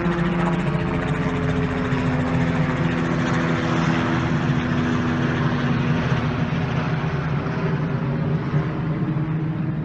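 Small helicopter flying low overhead: a rapid, steady beat of the rotor blades over the engine's hum.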